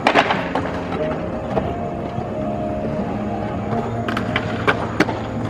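Inline skate wheels rolling on the smooth skatepark surface with a steady rumble. About four to five seconds in come several sharp knocks as the skates land on and grind a wooden box.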